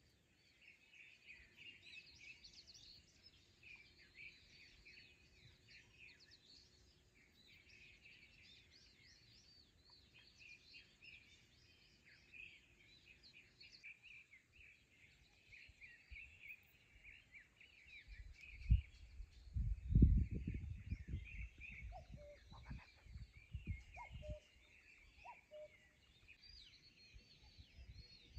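Many small birds chirping and trilling together in a steady chorus. About two-thirds of the way in, gusts of wind buffet the microphone with low rumbles, louder than the birdsong.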